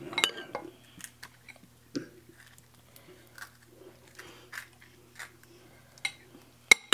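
Crisp puchka (pani puri) shells cracking and crunching as they are broken open with spoons and eaten, with light clicks of spoons on plates. A sharp clink of a spoon against a dish near the end leaves a short ring, over a low steady hum.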